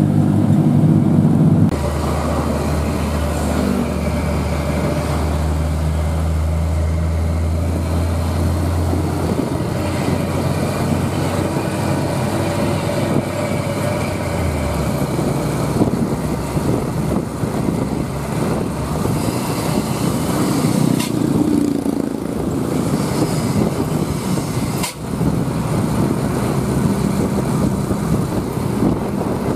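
Traffic heard from close behind a heavy truck on a downhill road: a steady low engine drone for about the first fifteen seconds, then a steady rush of wind and road noise with engines running beneath it.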